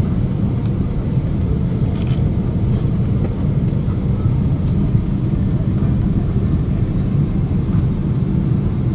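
Steady low cabin roar of a Boeing 777-300 on its landing approach: the jet engines and the rush of air along the fuselage, heard from inside the cabin. A faint click about two seconds in.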